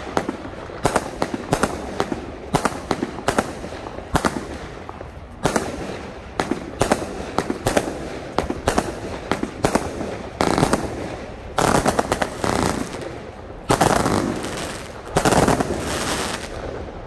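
Zombie Bite 100-shot firework cake firing in quick, irregular succession: a stream of shots launching and shells bursting overhead, with several louder, longer bursts in the second half.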